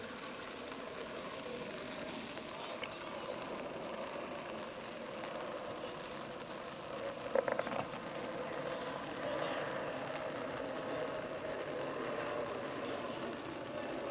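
Outdoor ambience during a rugby match: a steady background hum with faint distant voices and a brief clatter of knocks about seven seconds in.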